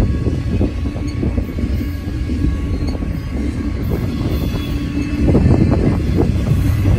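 Double-stack intermodal freight train rolling past: a steady rumble of steel wheels on the rails with repeated clacks as the cars' wheels cross the rail joints. It gets louder about five seconds in, with a quick run of clacks.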